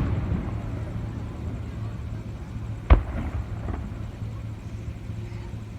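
Aerial fireworks bursting outdoors: one sharp boom about three seconds in, with a weaker pop just after it. At the start, the rumbling echo of a previous burst is still dying away, and a steady low hum runs underneath.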